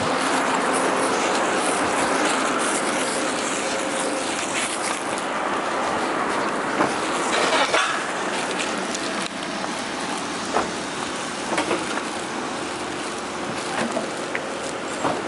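Steady road traffic noise along a street, with a few light clicks and taps scattered through it.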